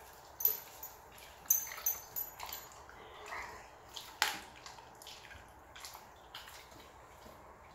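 A Rottweiler chewing raw chicken drumsticks: irregular sharp clicks and smacks from its jaws, bunched in the first two and a half seconds with another loud one about four seconds in.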